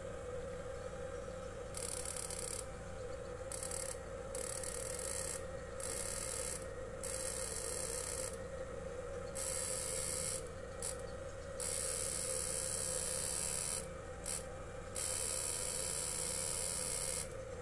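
Electro-fishing inverter running with a 200-watt bulb as its load: a steady hum, overlaid by a high hissing whine that cuts in and out in irregular spells of about one to two seconds.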